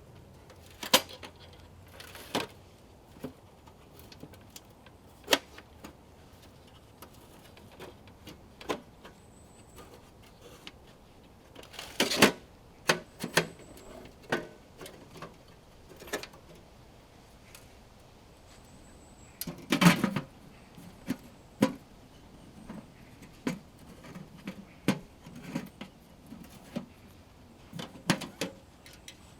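Irregular knocks, taps and clatter of camping gear being handled while a tent and stove are set up, with louder clusters about twelve seconds in and again about twenty seconds in.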